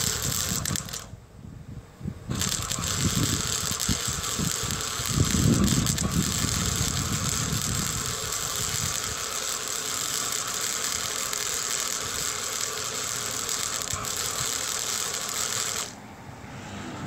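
Electric arc welding: a steady crackling sizzle of the arc on steel. It breaks off briefly about a second in, resumes, and cuts off shortly before the end.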